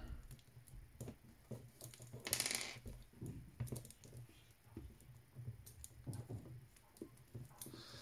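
Faint clicks and rustles of hands handling a sixth-scale Hot Toys Batman figure, fitting and adjusting its belt, with a brief louder rustle about two seconds in.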